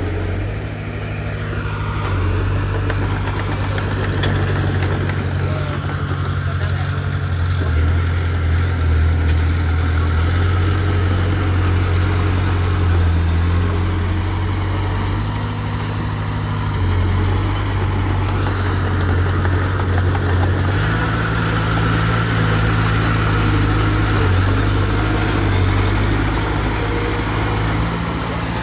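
Heavy diesel engine of earthmoving equipment running, its speed stepping up and down every few seconds.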